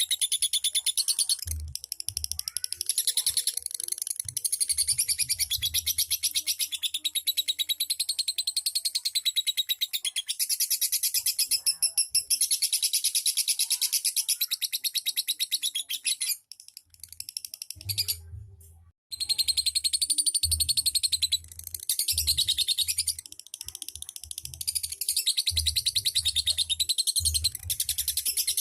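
Lovebird singing its long, rapid chattering trill (the 'ngekek' song), with a short break about two-thirds of the way through.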